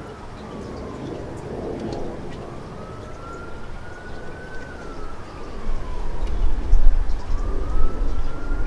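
An emergency vehicle's siren wailing, its tone slowly rising and falling about every four seconds. A heavy low rumble grows much louder over the last few seconds.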